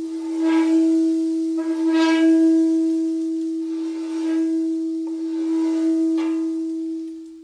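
A single sustained tone held at one steady pitch, its upper overtones swelling and ebbing every second or two, fading away at the very end.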